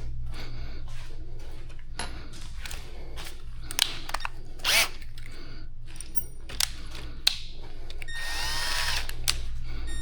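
Bench buffing wheel motor running with a steady hum. The machined shifter extension is pressed against the wheel in short repeated passes, and there are a few sharp clicks partway through.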